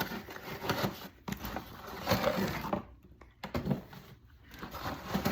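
Irregular rustling, scraping and light knocks of takeout food containers and bags being handled and unpacked.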